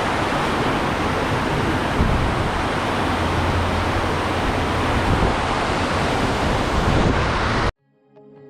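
Steady rush of flowing water, running high after a storm. It cuts off suddenly near the end, and soft ambient music starts to come in.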